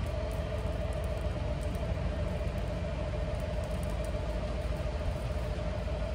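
Engine running steadily: a constant low rumble with an even hum.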